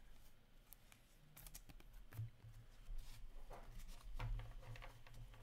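Faint rustling and light clicks of a stack of hockey trading cards being handled and squared between the hands, busier in the second half, over a low hum.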